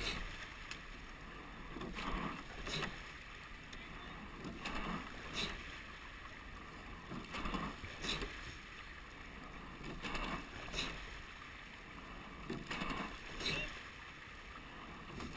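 Rowing eight under way at a steady warm-up rate: each stroke comes about every two and a half seconds as a pair of sudden knocks and splashes from the oar blades and oarlocks, over a steady rush of water past the hull.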